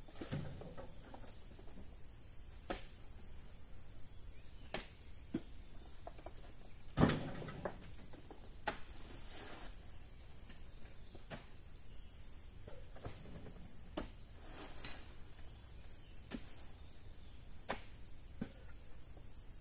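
Insects droning steadily on one high note, with scattered knocks and thuds every second or two, the loudest about seven seconds in.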